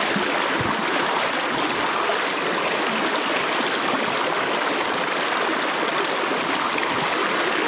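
Steady rush of stream water flowing over rocks, an even, unbroken sound.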